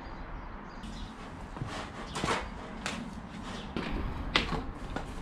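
Rummaging through a plastic box of tools and parts: an irregular string of sharp knocks, clicks and clatters as items are moved about, starting about a second in.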